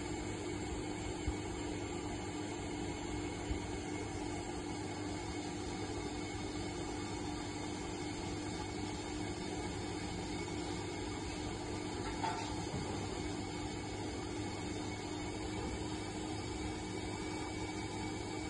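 Brake lathe running steadily while turning a brake disc: a constant motor hum with a steady tone, and a few light clicks.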